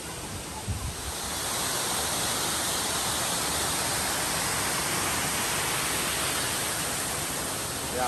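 Waterfall on a mountain stream rushing into a pool: a steady, full hiss of falling water that swells about a second in and then holds. A low thump comes just before the swell.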